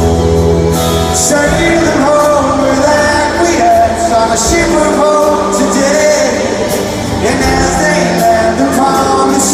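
Live rock band playing a song with a male lead vocal, heard in a large concert hall.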